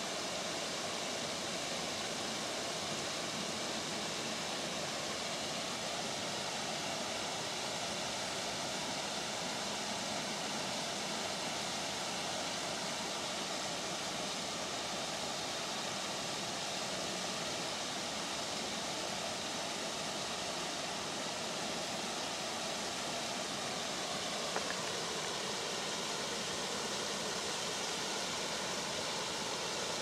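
Small forest mountain brook rushing steadily, its water splashing over a low weir and running down across stones.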